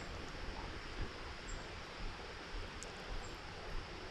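Steady rush of a shallow rocky creek, with faint short high chirps now and then and a couple of light knocks.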